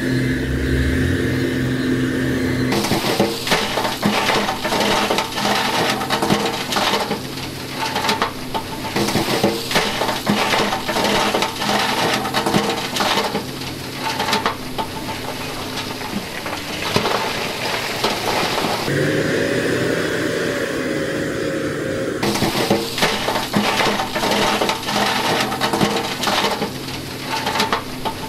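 Dump truck's diesel engine running under a dense clatter of rocks sliding out of the tipped bed and tumbling down the rock pile, starting about three seconds in. The clatter eases for a few seconds past the middle, then picks up again.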